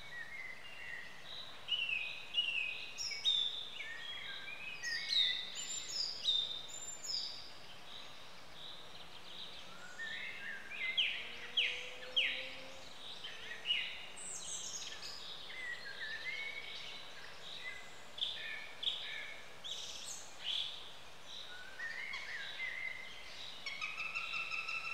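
Several wild birds chirping and calling in short, quick notes and trills, overlapping one another, over a faint steady hiss of woodland background.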